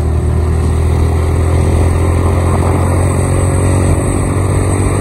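Motorcycle engine running steadily at cruising speed, heard from the rider's seat, with a strong low rumble and no change in pitch.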